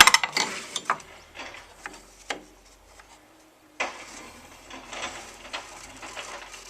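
A quick rattle of small mechanical clicks, then a few single clicks, and from about four seconds in a steady scraping rub.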